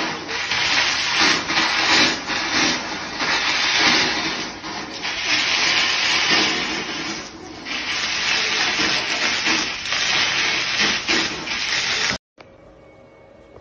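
Water gushing down from the ceiling and splashing onto a flooded floor: a loud, steady rushing hiss that stops abruptly near the end.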